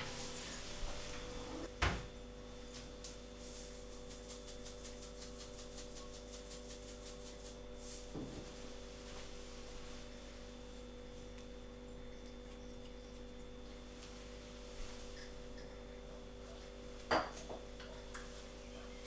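Steady electrical hum made of several fixed tones, with a sharp knock about two seconds in, another near the end, and a run of fast faint ticks in the first half.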